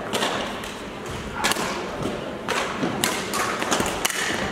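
Badminton rally in a large sports hall: several sharp racket strikes on the shuttlecock about a second apart, with a thud near the end as a player dives onto the court floor.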